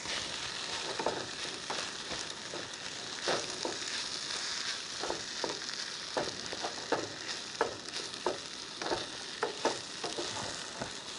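Fried rice with egg sizzling in a small pot on a two-burner camp stove, stirred with a wooden spoon that scrapes and knocks against the pot in quick, irregular strokes over a steady sizzle.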